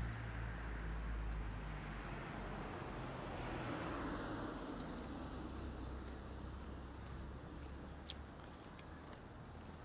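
Quiet city street ambience with traffic: a low engine hum fades out over the first two seconds, then a swell of passing car and tyre noise peaks about four seconds in. A single sharp click comes near the end.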